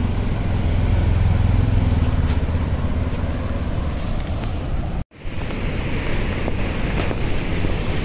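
Steady roar of water released through dam gates rushing down the river, with wind rumbling on the microphone. The sound cuts out abruptly about five seconds in, then a steady rushing noise resumes.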